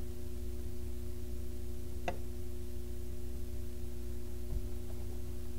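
Steady low electrical hum, with one short sharp click about two seconds in as hands handle the picture book before turning the page.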